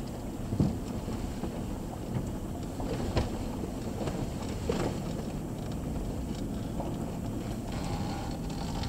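Vehicle heard from inside its cab while driving slowly on a dirt road: a steady low rumble of engine and tyres on gravel, with a few knocks from bumps, the loudest about half a second in and about three seconds in.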